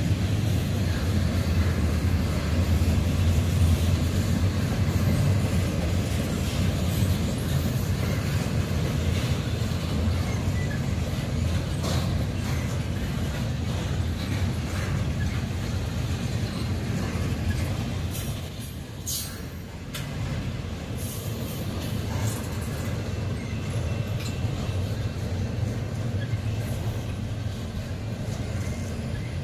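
Double-stack intermodal container well cars of a freight train rolling past, a steady rumble of steel wheels on the rails.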